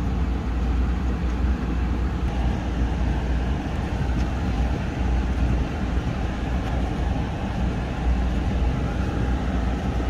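Ram pickup truck heard from inside the cab as it pulls away over deep snow: a steady low rumble of engine and tyres with an even hiss over it.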